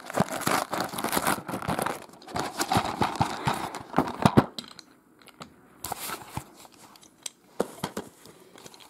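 A paper mailer being torn open and crinkled, with the plastic DVD case slid out of it: busy crackling and rustling for about four and a half seconds, then only a few light handling clicks.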